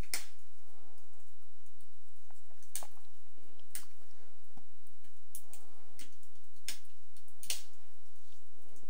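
Crackling log fire from a fireplace video on a television: irregular sharp pops and snaps over a faint, steady low hum.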